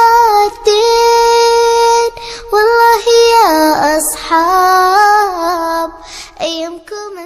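A high solo voice singing an Arabic song unaccompanied, drawing out long ornamented notes with vibrato and dipping in pitch partway through. It trails off near the end.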